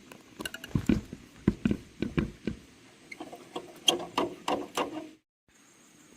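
Irregular clinks and knocks of hand tools working on metal tractor parts, a dozen or so sharp strikes that cut off suddenly just after five seconds.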